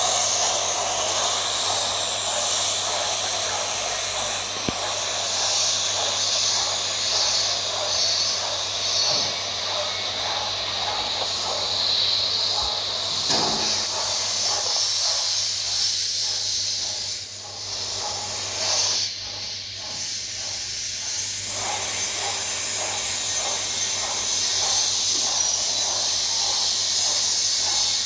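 TIG welding arc on a steel pipe root pass, hissing steadily with a low steady hum under it. The hiss dips briefly a little past the middle.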